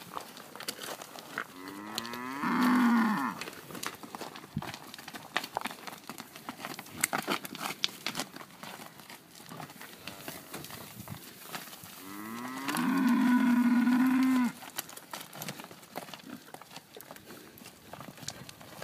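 Cattle mooing twice: a short moo about two seconds in and a longer, steady one of about two seconds starting about twelve seconds in. Scattered clicks and knocks of hooves on stony ground run between them.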